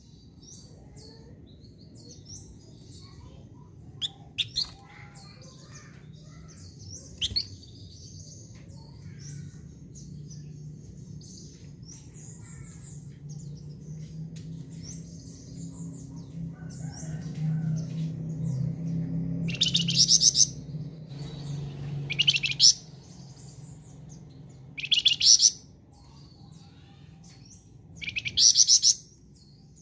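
A caged flamboyan songbird singing vigorously: a run of quick high chirps and twitters, broken by four loud bursts of rapid repeated notes in the second half. A low hum sits under it, strongest around the middle.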